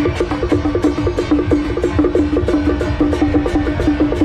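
Loud music with a quick, steady beat: short woodblock-like notes repeating several times a second over low drums.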